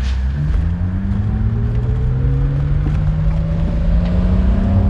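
1987 BMW 320i (E30) inline-six engine running just after starting, cold. Its revs rise quickly in the first second, climb slowly and steadily after that, then drop near the end.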